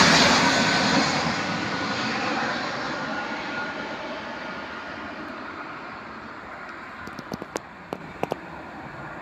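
Airbus A321neo airliner's jet engines passing low overhead, the noise fading steadily as it draws away, with a faint whine in the first few seconds. A few sharp clicks come near the end.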